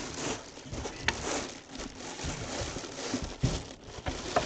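Packaging rustling and crinkling with scattered clicks and knocks as a full-size football helmet is unwrapped and lifted out of its box.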